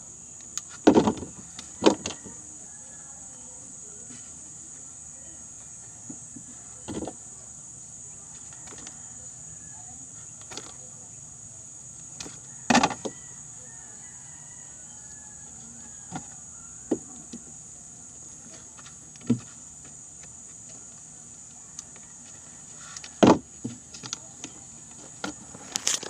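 A phone being handled and bumped against the body and clothing: scattered sharp knocks and rubbing, the loudest about a second in, at two seconds, midway and near the end, over a steady high-pitched drone.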